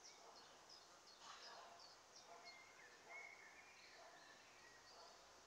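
Near silence of faint outdoor ambience, with small birds chirping faintly and intermittently in the distance and a brief thin whistled note near the middle.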